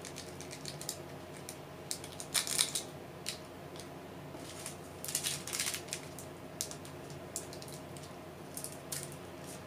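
Diamond painting supplies being handled: scattered light clicks and rattles of small plastic storage containers and resin drills, with short rustling bursts about two and a half and five seconds in, over a faint steady hum.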